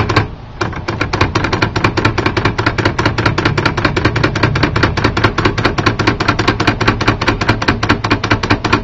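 L.C. Smith manual typewriter clattering in a fast, even run of key strikes, about eight or nine a second, with one short pause just after the start.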